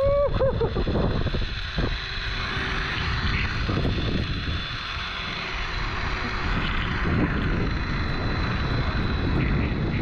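Zipline ride: the trolley's pulleys running along the cable and wind buffeting the handheld microphone, a steady rushing rumble. A brief voice exclamation at the very start.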